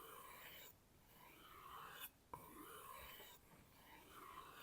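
Knife blade drawn along a kangaroo-tail leather strop: faint rubbing strokes, about four of them, each lasting roughly a second.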